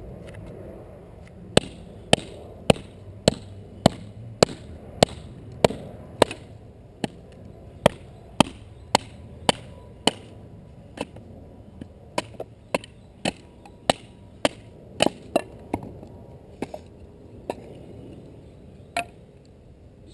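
A bushcraft knife striking wood in a long run of sharp, evenly spaced blows, about two a second. The blows start about a second and a half in, grow weaker and a little more irregular later on, and one last blow falls near the end.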